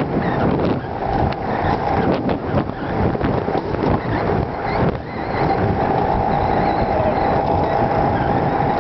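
Alpine coaster sled running fast down its steel tube track: a loud clattering rumble of the wheels on the rails. About five seconds in the clatter evens out into a steadier run with a steady hum.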